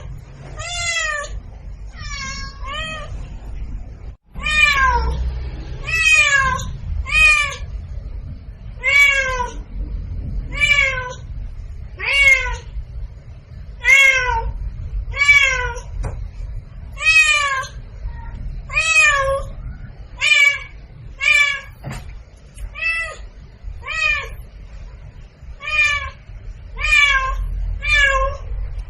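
A cat meowing over and over: about twenty short meows, each rising then falling in pitch, roughly one every second or so, over a low steady hum.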